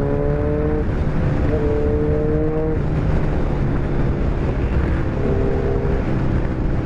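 Kawasaki Ninja 1000 inline-four engine running under way, its note rising slowly, breaking off about a second in and again near three seconds, and coming back around five seconds. Heavy low wind-and-road rumble on the microphone throughout.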